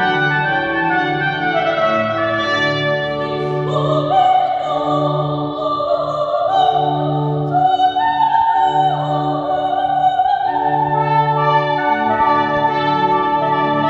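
Baroque aria for soprano, trumpet and continuo. Steady trumpet notes give way about three and a half seconds in to a high soprano line sung with vibrato, over repeated low sustained bass notes.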